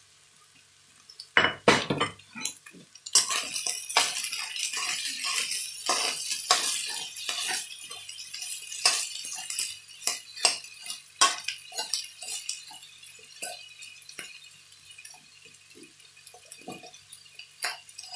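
A utensil scraping and clinking against a nonstick wok-style frying pan as fried rice is stirred and tossed. The clatter starts about a second and a half in, is busiest with a steady hiss through the first half, and thins to scattered scrapes and taps toward the end.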